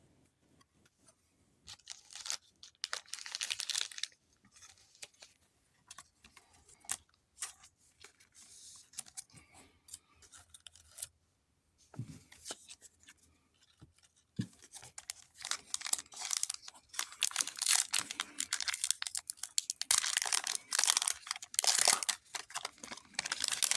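Foil wrapper of a Pokémon TCG booster pack being torn open and handled, with crinkling and tearing in irregular bursts that grow dense over the last third. The tear went smoothly.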